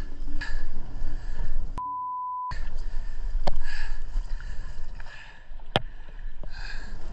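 Water splashing and sloshing around a spearfisher swimming at the surface, with the rushes of sound coming and going. About two seconds in, a short steady electronic beep sounds for under a second while the other sound cuts out under it, and a couple of sharp clicks come later.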